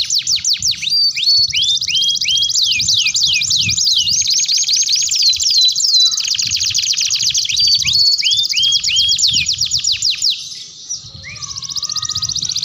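Domestic canaries singing a long, high song of rapid repeated downward-sweeping whistled notes and fast trills. The song dips briefly about ten and a half seconds in, then picks up again with a lower warble under the trill.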